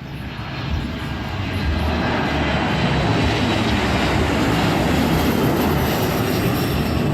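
Airplane engines running loudly as a steady rush of noise, swelling over the first two seconds and then holding steady.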